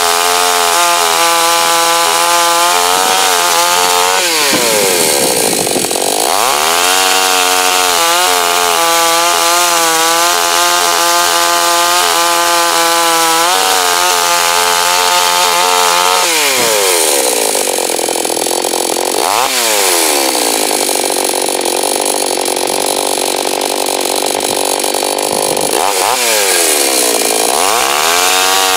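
Two-stroke petrol chainsaw running at high revs, its engine note dropping sharply and climbing back again several times as the chain bites into wood, with a rasping hiss of cutting through much of the second half.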